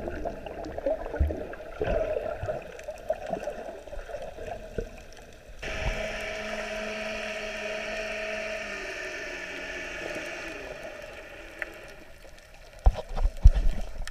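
Underwater sound picked up through a GoPro's waterproof housing: irregular gurgling and bubbling of water with small pops. About halfway in it changes suddenly to a steady hum with a couple of held tones that slowly fades, and a few loud knocks come near the end.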